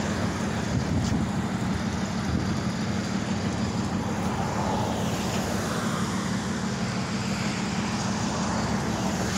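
Road traffic: a steady low engine drone with tyre and road noise from passing cars and a box truck.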